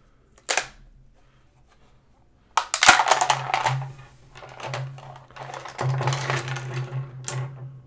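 Hard PETG 3D-printed clamp parts clattering, clicking and scraping on a wooden desktop as they are handled and pulled apart, with the loudest sharp click about three seconds in.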